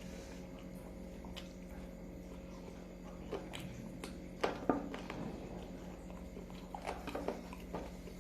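Quiet eating sounds: a person chewing a mouthful of chicken curry and rice, with scattered soft mouth clicks and smacks, the loudest a little after the middle, over a faint steady hum.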